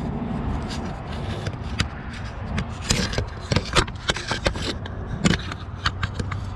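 Irregular metallic clinks and scrapes of hand tools and fasteners while a truck starter's cables and bolts are refitted, over a steady low hum.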